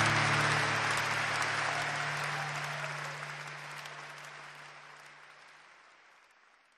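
Crowd applause and cheering fading out steadily to silence, with a low held note of music dying away under it during the first five seconds or so.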